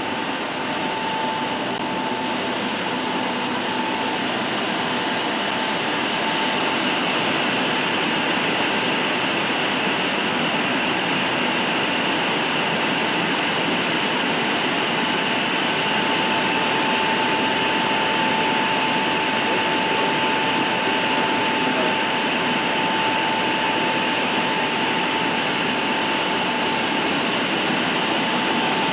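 Steady rushing machine noise of a running high-power valve long-wave broadcast transmitter, with a thin steady whine that fades out about four seconds in and comes back around sixteen seconds.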